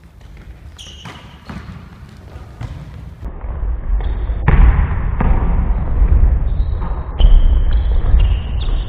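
A basketball bouncing on a wooden gym floor: a few separate bounces at first, then from about four and a half seconds in a louder, busier stretch of play noise over a steady low rumble.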